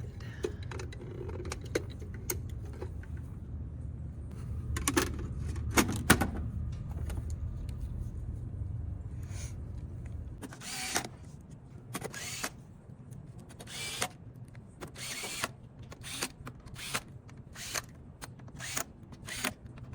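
Scattered clicks and knocks of small parts and connectors being handled, over a low steady hum that cuts off about halfway through. After that comes a run of short, evenly spaced rustling or scraping sounds.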